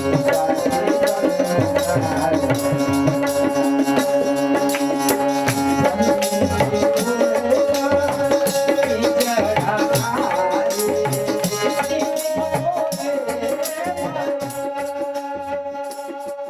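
Devotional bhajan music: steady percussion with jingling strokes under sustained held notes, with a wavering melody line around the middle. It eases off slightly near the end.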